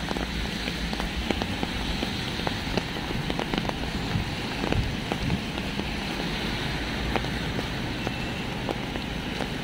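Steady rain falling, with frequent sharp ticks of single drops striking close by, over a low rumble.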